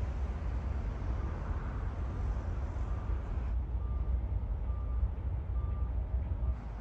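Outdoor street ambience: a steady low rumble of wind and road traffic. About halfway through, a faint electronic beep starts repeating roughly once a second.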